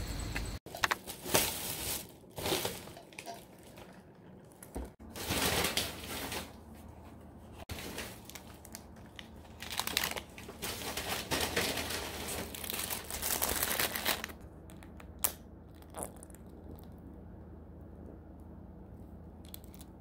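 Paper fast-food packaging crinkling and rustling as it is handled and unwrapped, in repeated bursts. The handling stops after about fourteen seconds, leaving two light clicks.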